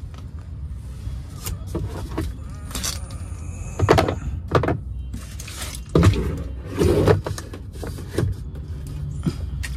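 A plastic bottle being handled and pushed into a car's door pocket: a series of sharp plastic knocks and crinkles, loudest about four and six seconds in. A steady low hum from the car runs beneath.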